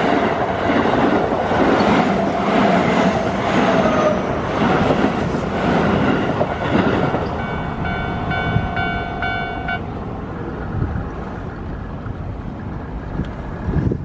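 Keio Line electric train running past over the level crossing, its wheels clacking rhythmically over the rail joints. The train noise dies away after about seven seconds. The crossing's warning bell then rings for about two seconds and stops, leaving only a faint steady hiss.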